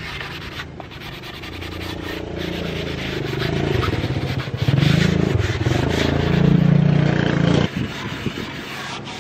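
Hand sanding of a pine board's edge with a sanding block, a rapid back-and-forth rubbing. Under it a four-wheeler's engine runs, growing louder about halfway through and dropping away about three-quarters of the way in.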